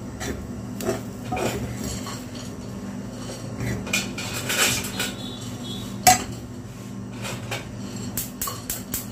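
Metal spatula stirring and scraping gram flour (besan) as it dry-roasts in a metal frying pan, with knocks of the spatula against the pan. One sharp knock comes about six seconds in and a run of quick taps near the end, over a steady low hum.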